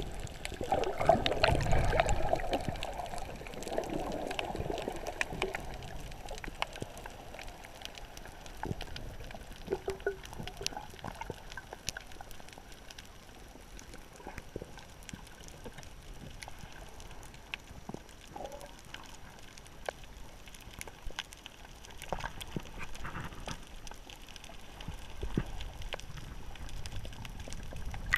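Water bubbling and gurgling, loudest in the first few seconds, then a quieter stretch with scattered sharp clicks.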